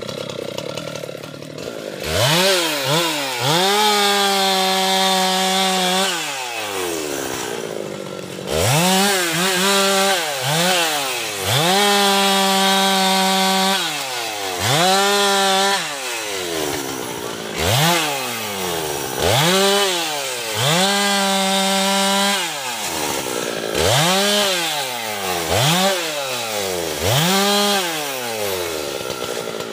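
Husqvarna two-stroke chainsaw revved over and over: quick throttle blips and several stretches held at full speed, each dropping back to a low idle, about a dozen rev-ups in all.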